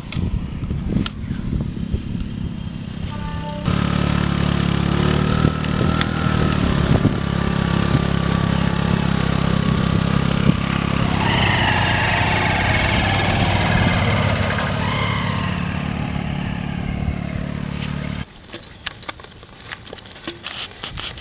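Small motor scooter engine running steadily as it rides along a sandy track, starting about four seconds in and cutting off abruptly near the end. After it, light rustling and steps through tall grass.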